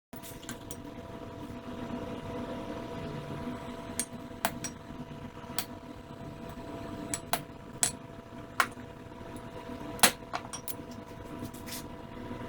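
Irregular sharp metallic taps and clinks on a small piece of steel, about a dozen, the loudest about ten seconds in, over a steady hiss with a faint steady hum.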